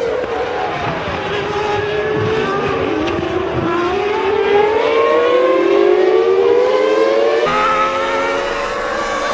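Formula One V10 engines at race speed: the pitch drops as a car slows, then climbs steadily as it accelerates. The sound changes abruptly about seven and a half seconds in.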